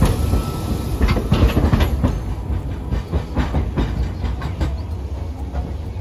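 Hiroshima Electric Railway 800-series streetcar passing close and pulling away, its wheels clacking on the rails over a low rumble. The clatter fades as it recedes.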